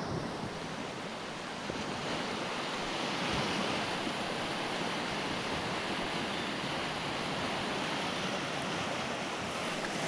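Ocean surf washing onto the beach, a steady rushing noise, with wind on the microphone.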